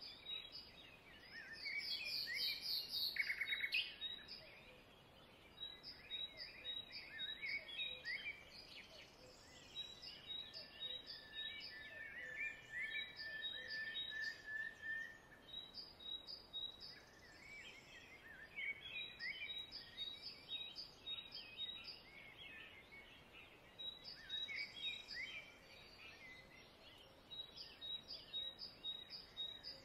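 Birds chirping: strings of short high notes and quick sweeping calls throughout, loudest about two to three seconds in.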